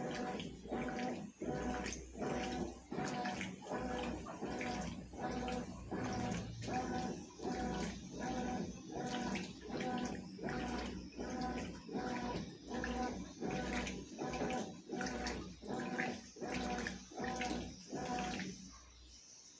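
Consul CWS 12 washing machine agitating a load in water, its motor driving the wash back and forth in an even rhythm of about two strokes every second with water sloshing. The agitation stops near the end.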